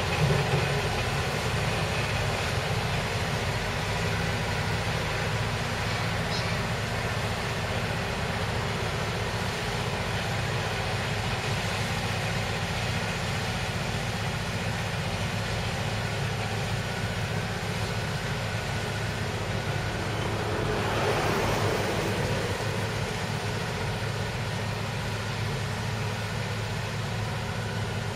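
KiHa 58 diesel railcar's engine running steadily with a low hum as the car pulls slowly out of the depot, with a brief louder swell of noise about three quarters of the way through.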